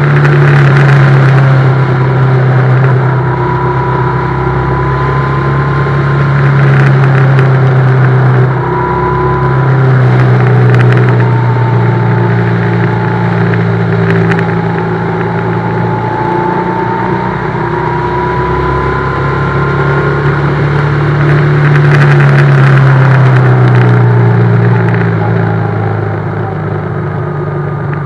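BMW GS motorcycle engine running under load on the road, its note rising and falling several times as the bike speeds up and eases off, with wind noise behind it.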